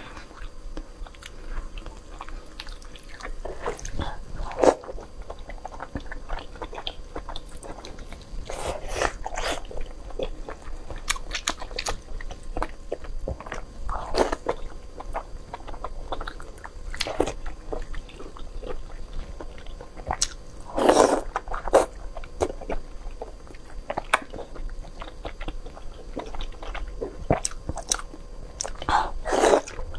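Close-miked eating sounds of a person chewing spicy noodles and braised pork, with wet mouth clicks throughout. Louder slurps come every few seconds, the loudest about two-thirds of the way through.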